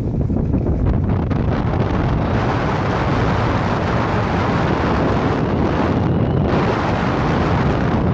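Steady wind noise buffeting the microphone while skiing downhill, a continuous rushing with a heavy low rumble.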